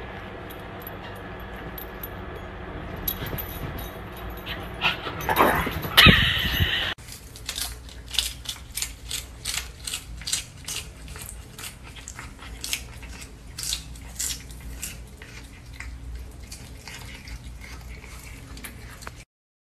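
A small dog whines and vocalizes for several seconds, loudest about six seconds in. After a cut, a cat chews a lettuce leaf: a long run of short, crisp crunches, two or three a second.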